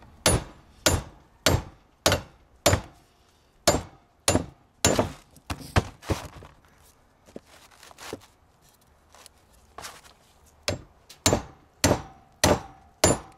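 Brass hammer striking the yoke of a front-axle universal joint propped on wooden blocks, driving its bearing caps out. Sharp metal blows come about twice a second, pause for a few seconds past the middle with a few light taps, then resume.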